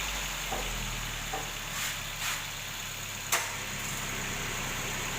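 Suzuki Swift 1.4-litre four-cylinder engine idling steadily, run briefly to circulate fresh oil after an oil change. A few short clicks sound over it, the sharpest about three seconds in.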